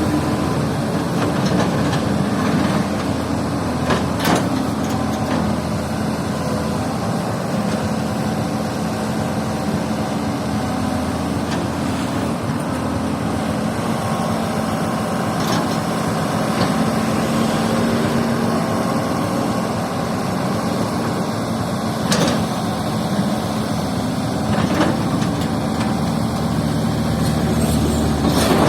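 Excavator's diesel engine running steadily under work, with a few sharp knocks along the way.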